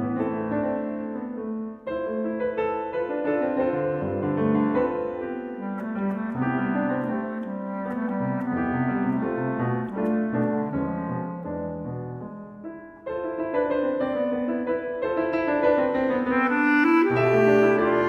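Bass clarinet playing a melody over piano accompaniment. The music briefly drops away twice, about two seconds in and again near thirteen seconds, and grows louder toward the end.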